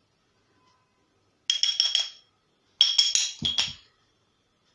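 A spoon clinking against a glass container in two quick runs of taps, the glass ringing after each, with a duller knock in the second run.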